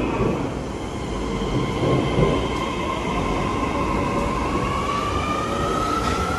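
Midosuji Line subway train moving along the platform, its wheels rumbling. Its motor whine rises slowly and steadily in pitch from about halfway through, as it does when the train pulls away.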